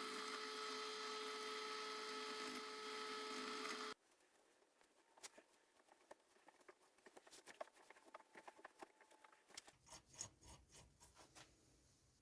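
A small electric power tool runs with a steady whine and stops abruptly about four seconds in. Faint light clicks and taps from metal parts being handled follow, most of them near the end.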